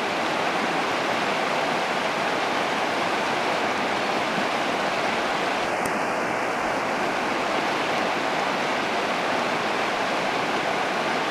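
River water rushing, a steady even hiss with no breaks.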